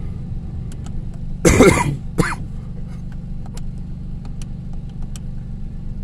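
A person coughs once, loudly, about a second and a half in, followed at once by a shorter cough or throat-clear. Underneath is the steady low hum of the 1992 Oldsmobile 98's 3.8-litre V6 idling, heard from inside the cabin, with light clicks of climate-control buttons being pressed.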